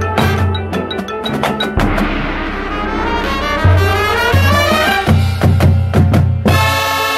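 High school marching band playing its show: a percussion-led passage of mallet keyboards, drum hits and low timpani strokes, with rippling runs in the middle. About six and a half seconds in, the full band comes in on a sustained chord with the brass.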